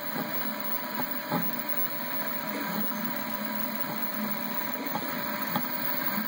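Cerberus delta 3D printer running a print: its motors make a steady whir with a steady tone through it, and a few faint ticks.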